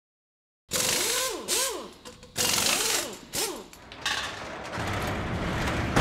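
Title-sequence sound effects of machinery: several loud bursts of mechanical clatter with short whirring pitch sweeps that rise and fall. These are followed by a low rumble that builds to a hit at the very end.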